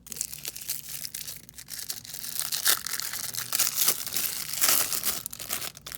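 A trading-card pack wrapper being torn open and crumpled in the hands, an irregular crinkling crackle with sharp louder rips.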